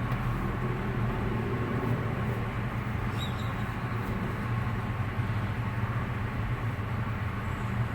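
Car engine idling, a steady low hum with some background noise, heard from inside the car.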